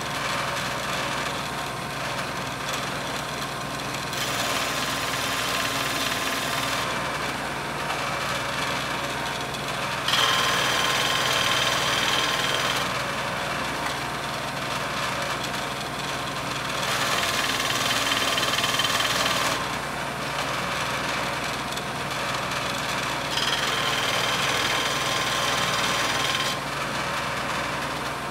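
A Shopsmith motor spins an abrasive sanding disc with a steady hum. A skew chisel is ground against the disc in four passes of about three seconds each, and each pass adds a louder grinding hiss as the steel of the old bevel is ground away.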